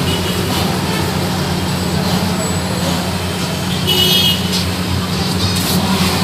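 Steady hum of road traffic, with faint voices in the background and a brief high-pitched squeak about four seconds in.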